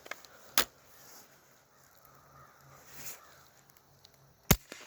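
Two sharp cracks about four seconds apart, the second the louder: shots from a pump BB gun.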